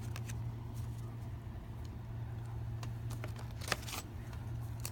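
Steady low background hum, with a few faint light ticks as trading cards are handled; the clearest tick comes near the end.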